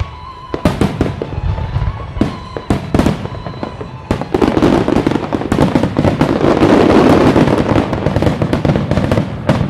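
Fireworks display: aerial shells bursting in separate sharp bangs, then from about four seconds in a dense, rapid volley of bangs and crackle that is loudest a few seconds later.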